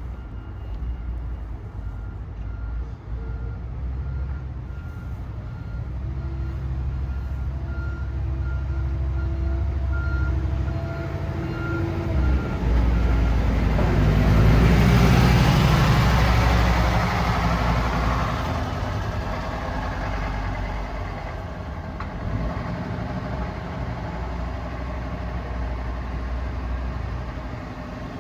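Vehicle engine with a failed turbocharger running, revved once in the middle with a rushing noise that swells and then fades away. A faint beeping comes and goes during the first half.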